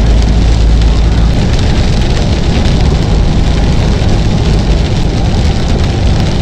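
Loaded semi truck driving on a wet highway, heard from inside the cab: a steady low engine and road rumble with rain on the windshield. The deepest rumble eases a little about a second in.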